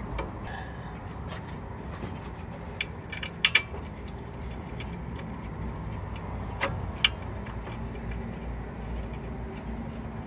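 Sharp metal clicks and taps as a replacement alternator is fitted to its mounting bracket and its bolts are started by hand: a quick pair of clicks a few seconds in and two more a few seconds later, over a steady low rumble.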